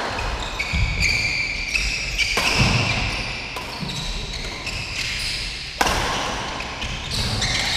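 Badminton rackets hitting a shuttlecock back and forth in a doubles rally, a few sharp hits seconds apart, each trailing off in the echo of a large hall, with sports shoes squeaking on the court floor between them.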